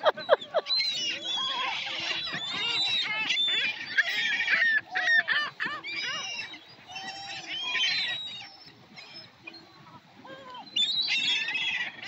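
A flock of gulls calling, with many overlapping cries and squawks. The calling is densest over the first few seconds, thins out in the middle and swells again near the end.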